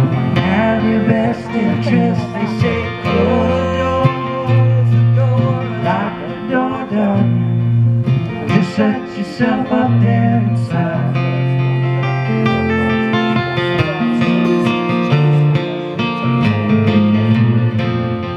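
Live acoustic-duo music: a strummed acoustic guitar and a second, amplified guitar, with singing through roughly the first half, after which the guitars carry on as an instrumental passage.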